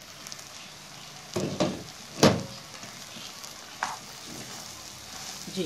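A spatula stirring chana dal and bottle gourd cooked soft in a pot, over a steady sizzle. It knocks and scrapes against the pot four times, the loudest a little past two seconds in.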